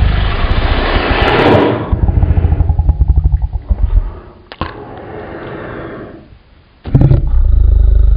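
Loud action sound effects: a dense rumble, then a rapid rattling run of strokes like gunfire or a racing engine, a single sharp crack about four and a half seconds in, and a steady low rumble starting again near the end.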